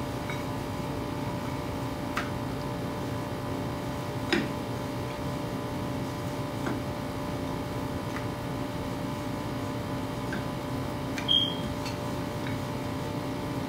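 Rolling pin working paratha dough on a marble board: a few light knocks and taps, and a short squeak about eleven seconds in, over a steady machine hum.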